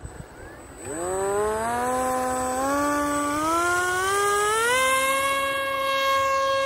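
Electric motor of a foam RC model Su-27 spooling up for takeoff. Its whine climbs in pitch in several steps as the throttle is pushed up, starting about a second in, then holds a steady high pitch once the plane is airborne.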